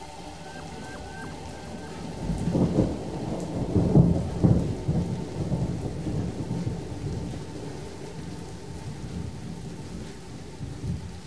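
A roll of thunder that swells about two seconds in, peaks and rumbles away over several seconds, over a steady patter of rain.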